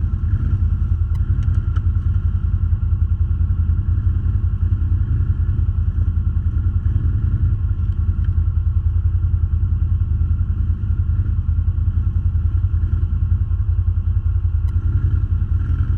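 ATV engine running steadily at an even, unchanging speed, with no revving.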